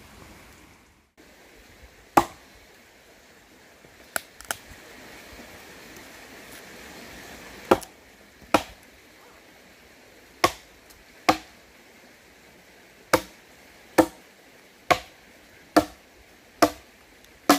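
Hatchet chopping into a fallen branch on the ground, with about a dozen sharp strikes. They come a few apart at first, then steadily about one a second.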